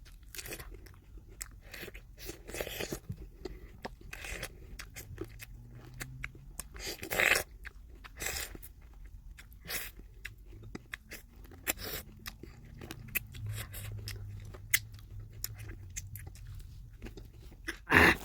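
Close-up chewing and biting of fresh apricot: irregular crunches and mouth clicks, with louder bites about seven seconds in and at the very end.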